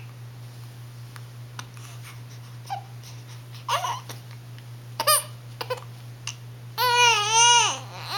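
Sleepy one-month-old baby fussing with a few brief whimpers, then one long, wavering cry about seven seconds in.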